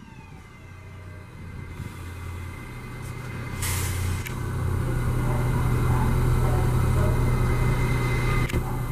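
R188 subway train pulling out of the station, its running noise growing steadily louder as it picks up speed, with a steady low hum. A brief hiss comes about three and a half seconds in.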